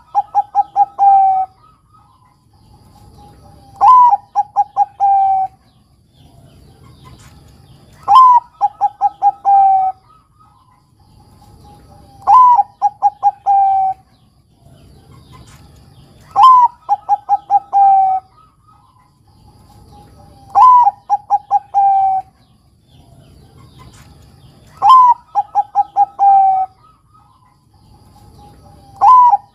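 Zebra dove (Bangkok-type perkutut) singing its staccato cooing song. Each phrase is a short opening note, then a quick run of clipped coos, then a longer falling coo, repeated about every four seconds.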